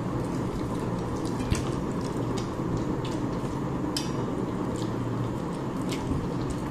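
Close, wet eating sounds as a meal of rice and fish curry is eaten: chewing and lip smacking with scattered small squelches and clicks, over a steady low hum.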